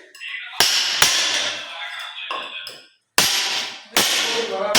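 Several sharp knocks of a tool striking the tiled floor and waste grate, each followed by a rattling ring, with a brief cutout of sound about three seconds in.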